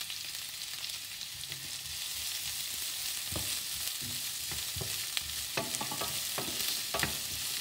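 Chopped onion sizzling in hot oil in a nonstick frying pan, with a wooden spatula scraping and knocking against the pan as it is stirred, the knocks coming more often in the second half.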